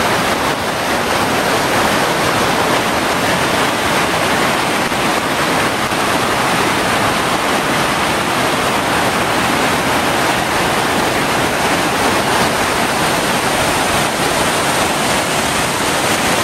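Whitewater of a mountain creek rushing over rocks and a waterfall: a loud, steady roar.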